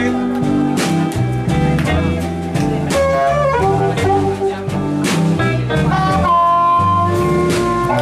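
Blues harmonica played cupped against a vocal microphone, answering the vocal with bent notes and a long held note near the end, over electric guitar, upright bass and drums.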